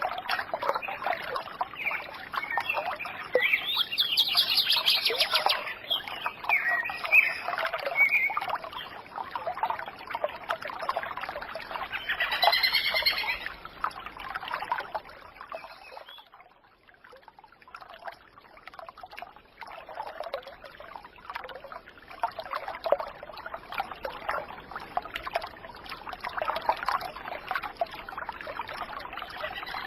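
Many birds chirping and calling at once, a dense chorus of short calls that thins out briefly about halfway through.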